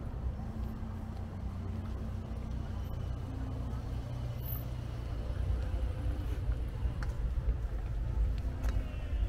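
Outdoor city street ambience: a steady low rumble of road traffic, growing a little louder about halfway through.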